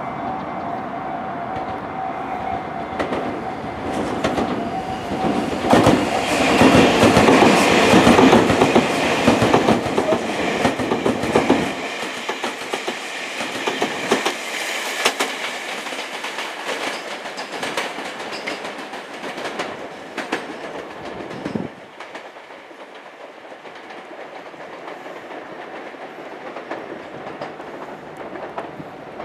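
Electric trains passing on the Tobu line. The loudest pass, from about 6 to 12 seconds in, clatters as the wheels click over rail joints. After it, a Tobu 500 series Revaty limited express runs by more quietly, and near the end a train approaches faintly. A steady ringing tone sounds for the first few seconds.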